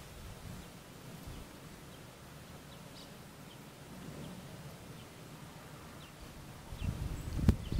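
Faint outdoor ambience with a few short, distant bird chirps. Near the end come a cluster of low thumps and one sharp click.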